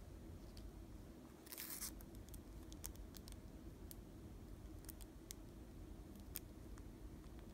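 A clear plastic sleeve being picked up and handled: a short crinkling rustle about one and a half seconds in, then scattered small clicks and ticks over a low room hum.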